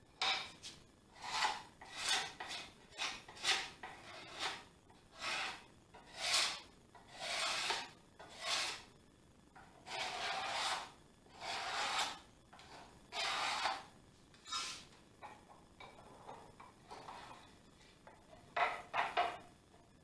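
Steel card scraper being pushed in repeated strokes across a European beech cutting board, a rasping scrape with each pass as it shaves off dried glue squeeze-out and levels the slightly proud joints. The strokes come quickly at first, then longer and slower, then fainter, with a quick cluster of short strokes near the end.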